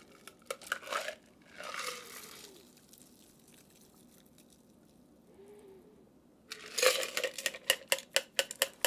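Ice clinking and rattling in a metal cocktail shaker tin as a shaken cocktail is double-strained through a fine-mesh strainer into two glasses. A few clinks come at the start, the pour is quiet in the middle, and a fast run of clinks and rattles fills the last two seconds.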